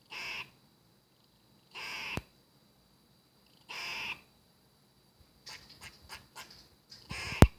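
A squirrel giving a hoarse, raspy call four times, about every two seconds, with a run of short clicks after the third call. A sharp knock, the loudest sound, lands on the last call near the end.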